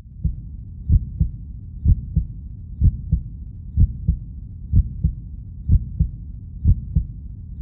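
Heartbeat sound effect: a steady lub-dub double thump about once a second, eight pairs in all, over a low steady rumble.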